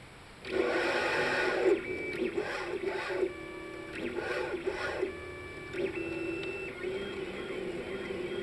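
Stepper motors of a Rostock delta 3D printer driving the carriages along the towers. They start about half a second in and sing at changing pitches, with steady tones that start and stop between moves. Near the end the motors make a repeating rising-and-falling warble.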